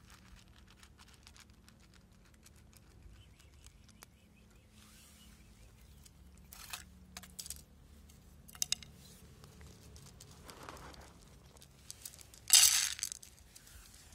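Small clicks and crunches from cats eating dry kibble out of a plastic bowl. Near the end there is one brief, loud rustling burst.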